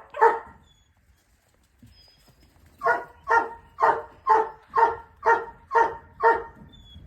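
A dog barking: a single bark at the start, then after a pause a steady run of about eight barks, roughly two a second.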